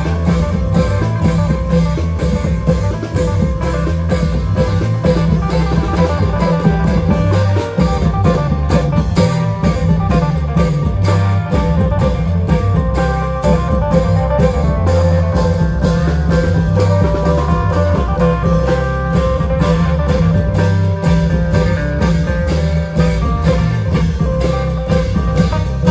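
Isan klong yao band playing: long drums keep a steady, driving beat with regular percussion strokes, under a plucked-string melody.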